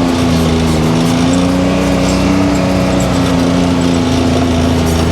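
Can-Am Maverick X3 DS Turbo side-by-side's turbocharged engine running at a steady, moderate speed while driving, its pitch wavering only slightly.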